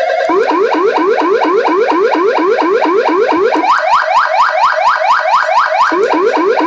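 Federal Sign AS9000B 200-watt electronic siren sounding through its speaker. About a third of a second in, it switches from a steady pulsing tone to a fast, repeating rising sweep, about four sweeps a second.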